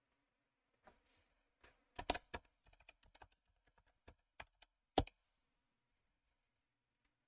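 Typing on a computer keyboard: a run of light key clicks starting about a second in, with one harder key press about five seconds in.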